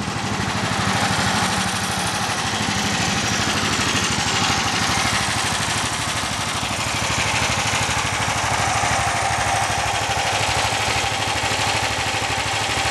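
A motor vehicle engine running steadily with a fast, even pulse.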